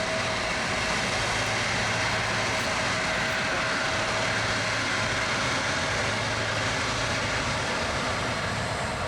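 Airbus A330-200's Rolls-Royce Trent 700 jet engines running steadily at low power, an even rush with a faint steady whine that fades out about halfway through.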